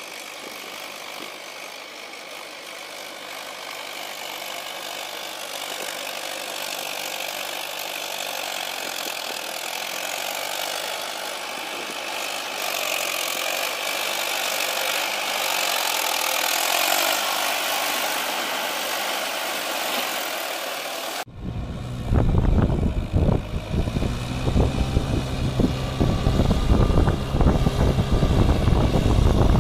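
Swaraj 843 XM tractor's diesel engine running steadily as it works through paddy-field mud on iron cage wheels. About two-thirds of the way in the sound cuts abruptly to a louder, deeper rumble with an uneven buffeting.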